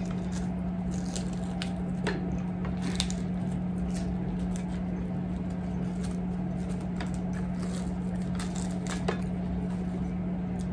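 Plastic cling wrap being peeled off a cup of soup, a scatter of faint crinkles and small ticks over a steady low hum.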